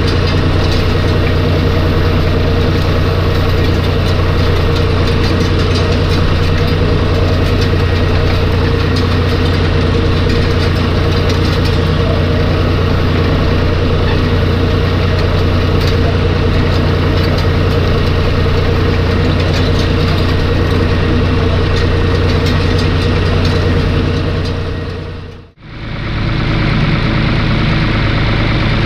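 John Deere tractor's diesel engine running at steady working revs while it pulls a PTO-driven rotary straw rake, heard from inside the cab. About 25 seconds in the sound dips away for a moment and returns as the same steady engine heard from outside, near the tractor's front.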